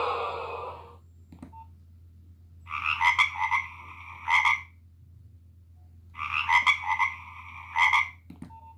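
Nokia 1600 mobile phone playing one of its built-in ringtones through its small loudspeaker. A short, croaky phrase of rapid pulses about two seconds long plays twice, about three and a half seconds apart.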